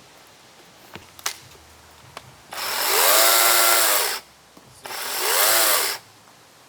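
Kobalt 24-volt cordless electric chainsaw run twice with no load, each burst about a second long. The motor's whine rises as it spins up and falls as it winds down.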